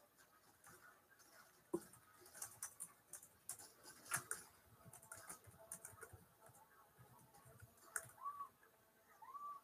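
Faint typing on a computer keyboard, a run of irregular light clicks, with two short squeaky tones near the end.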